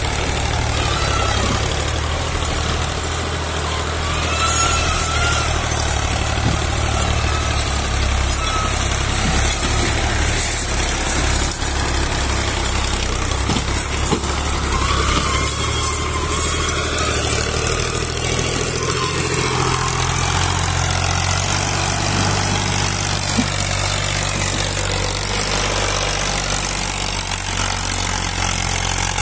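Fiat/New Holland farm tractor's diesel engine running steadily while pulling a trolley heavily loaded with sugarcane, its note shifting in pitch a few times.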